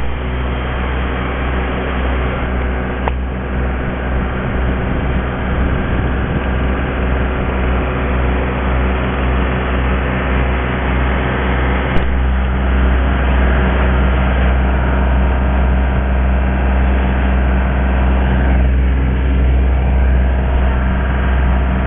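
An engine running steadily at a constant speed, with a single sharp click about twelve seconds in.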